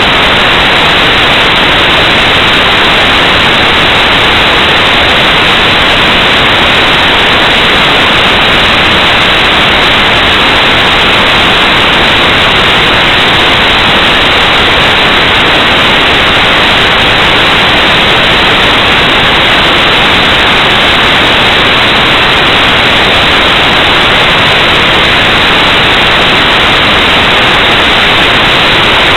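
Loud, steady static hiss with nothing else audible. It is electronic noise from the recorder rather than any sound in the room: the device's audio has failed while its picture sits frozen.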